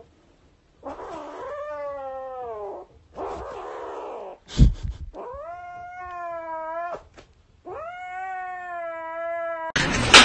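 Grey kitten yowling: four long, drawn-out calls, the second shorter and rougher, with a single thump between the second and third.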